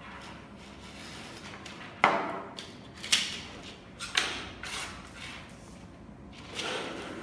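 Plastic camera parts and cables being moved and set down on a wooden desk: a sharp knock about two seconds in, then several more clatters over the next few seconds.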